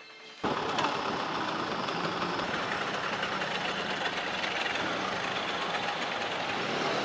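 Small two-stroke engine of a 2005 Hero Puch Turbo GXL moped running steadily at low speed, heard from on the bike. It cuts in abruptly about half a second in.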